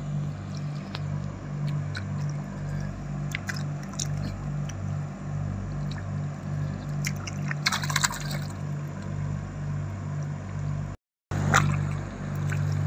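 Shallow muddy water splashing and sloshing as hands grope along the bottom of a concrete fish trap for catch, with a few sharper splashes and a louder flurry about two-thirds of the way in. Under it runs a steady low hum that pulses a couple of times a second.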